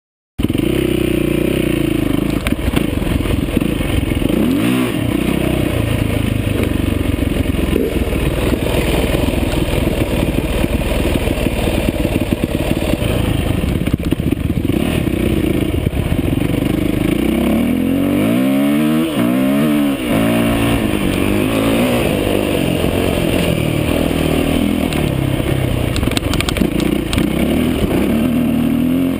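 Yamaha YZ450F four-stroke single-cylinder dirt bike engine running under way, heard close up from a chest-mounted camera, cutting in suddenly after a moment of silence. The engine note rises and falls with the throttle, sweeping up and down in pitch around five seconds in and again around nineteen seconds.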